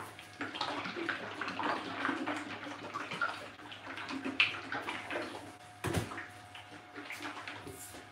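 A plastic bottle of liquid photopolymer resin shaken hard by hand, the resin sloshing inside, to remix resin that has settled before it is poured into the printer's vat. A single sharp knock about six seconds in.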